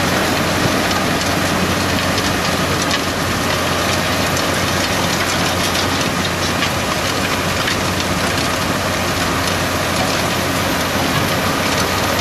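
Tractor engine running steadily under load, pulling a Sumo Versadrill seed drill through stubble, with a constant noisy hiss over a low hum.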